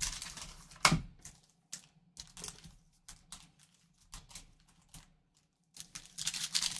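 Trading card pack and cardboard box handled by gloved hands: scattered light clicks and rustles as a pack is pulled from the box, then, near the end, dense crinkling of the pack's wrapper as it is worked open.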